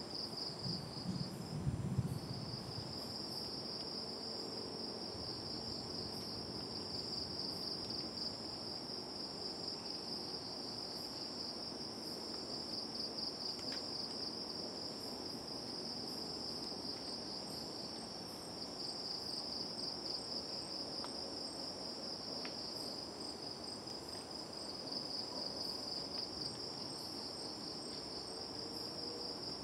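A night insect chorus: a steady, finely pulsing high trill, with a second faint, regularly repeating chirp higher up in the second half. There is a brief low rumble about two seconds in.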